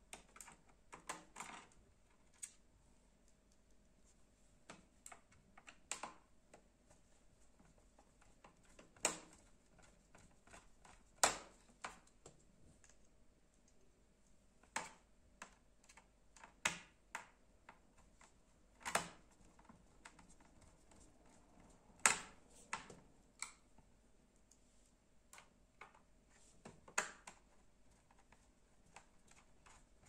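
Irregular sharp clicks and taps of plastic laptop parts being handled and pressed into place during reassembly, a second to several seconds apart.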